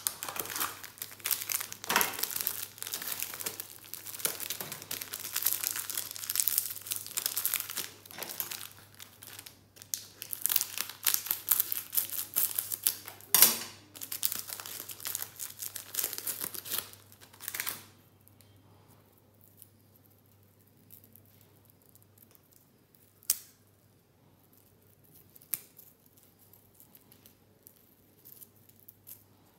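Crinkling and tearing of a foil snack wrapper as a wafer packet is handled and opened, dense and crackly for about the first eighteen seconds. Then a few isolated sharp snaps as the cream wafer is broken apart.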